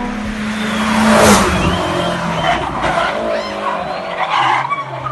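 Hill-climb race car running hard with tyre squeal, loudest about a second in.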